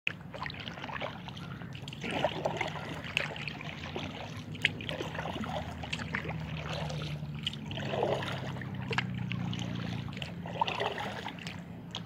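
Paddle strokes from an inflatable kayak: the blades dip and water trickles off them in a few soft splashes, with light clicks, over a low steady hum.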